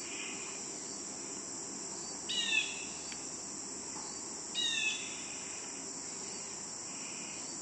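Steady high-pitched insect chorus from the riverside vegetation. A bird breaks in twice with a short call of falling notes, about two seconds in and again near the middle.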